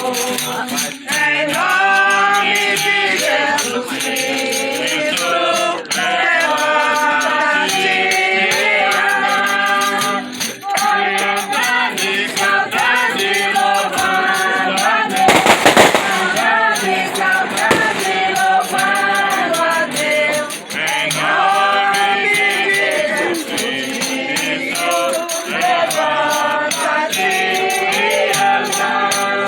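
Voices singing a melody together over rattling hand percussion that keeps a fast steady rhythm. About halfway through, a loud noisy crackling burst lasting about a second rises above the singing.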